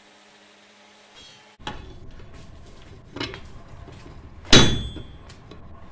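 Hammer blows on a red-hot steel falchion blank on an anvil: a light strike about three seconds in, then a loud blow about four and a half seconds in that rings afterwards, over a low steady rumble. A faint steady hum fills the first second and a half before the sound changes abruptly.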